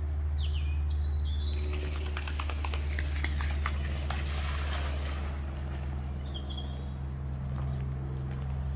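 Birds chirping in short notes that slide down in pitch, a few near the start, more in the middle and again near the end, over a steady low mechanical hum. A patch of light crackling clicks comes in the middle.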